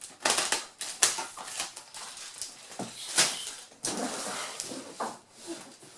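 Utility knife slicing through a cardboard box, with irregular scratchy strokes and rustling of the cardboard, loudest about three seconds in.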